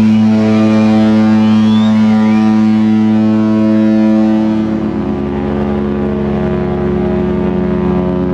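Cruise ship horns blowing: one long, loud, deep horn blast, joined about halfway through by a second horn at a different pitch that sounds over it.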